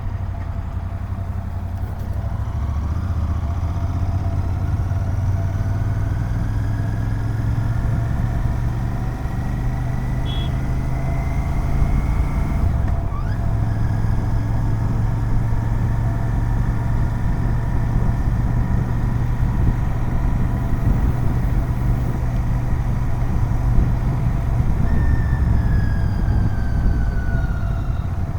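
Royal Enfield Continental GT 650's 648 cc parallel-twin on its stock exhaust, running under way. The note climbs for about ten seconds, breaks as if for a gear change about halfway through, holds steady, then drops near the end as the bike eases off.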